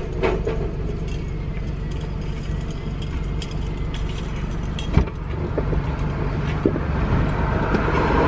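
Steady road and engine noise heard inside a moving car, with a few sharp bangs cutting through, the loudest about five seconds in.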